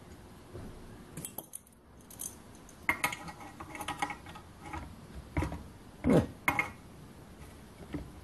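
Light metallic clicks and clinks of a small spanner working brass pipe fittings on a model steam engine's cylinder, with a few sharper knocks about two-thirds of the way through.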